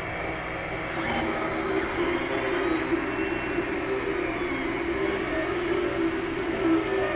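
Monoprice MP Select Mini 3D printer starting a print: over a steady whir, its stepper motors start driving the bed and print head about a second in, whining in tones that shift as the axes move.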